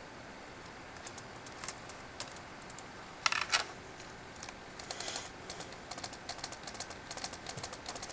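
Keys on a Lenovo Flex 2-15 laptop keyboard being pressed: a few scattered clicks, a brief louder clatter about three seconds in, then a quick run of key clicks through the second half.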